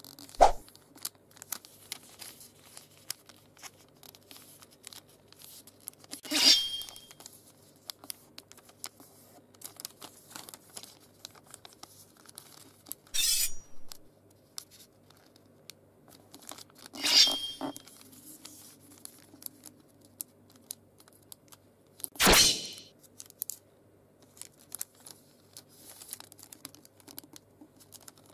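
Origami paper being creased and folded, with soft crinkles and small clicks throughout. Over this come five louder samurai-sword sound effects, near the start and at roughly five-second intervals; two of them carry a lingering ringing tone.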